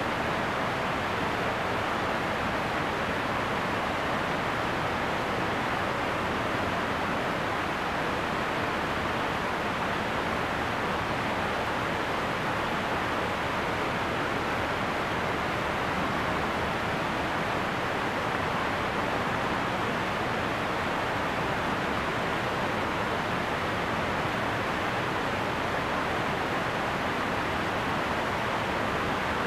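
Steady rush of water churning into an Erie Canal lock chamber as it fills.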